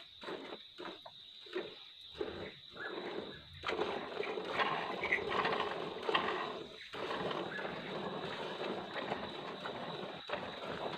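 A cow being milked by hand into a plastic bucket: rhythmic squirts of milk hitting the bucket. From about four seconds in, the sound runs together into a denser, louder noisy stretch.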